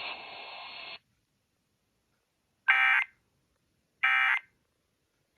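EAS end-of-message signal: short buzzy bursts of SAME digital data tones, one about two and a half seconds in and another about a second and a half later, with a third starting at the very end, marking the close of the emergency alert test. Before them, faint radio broadcast audio cuts off about a second in.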